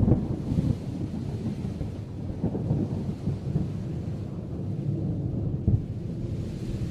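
Rolling thunder rumbling low, loudest at the start and slowly dying away, with a brief swell near the end.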